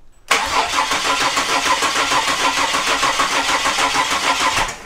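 Turbocharged Ford Barra inline-six cranking on its starter motor for about four seconds, with a fast, even chug of compression strokes. It never fires or catches: the engine is not even sputtering.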